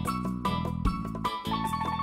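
Background music: short repeated pitched notes and a bass line over a quick, steady beat.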